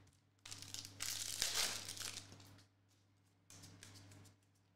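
Foil wrapper of a 2021-22 NBA Hoops trading-card pack being torn open and crinkled by hand: a crackling rustle lasting about two seconds, then a fainter rustle a little later.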